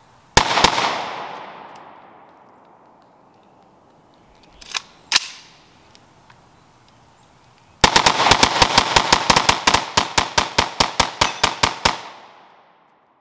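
AR-15 with a Franklin Armory BFSIII binary trigger firing in binary mode, one shot as the trigger is pulled and one as it is released. There are two quick pairs of shots, then a fast string of shots lasting about four seconds, each shot trailing an echo.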